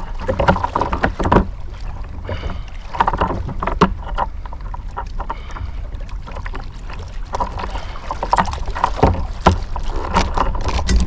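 Water splashing and slapping at the side of a kayak where a hooked jack crevalle is held alongside, in irregular bursts over a steady low rumble of wind on the microphone.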